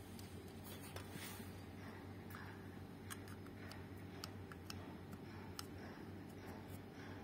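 Soldering iron and solder wire working the solder pads of a circuit board: faint, scattered sharp ticks and clicks, thickest a few seconds in, over a steady low hum.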